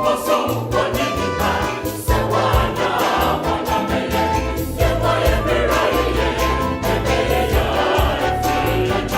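Music with a choir singing over a bass line.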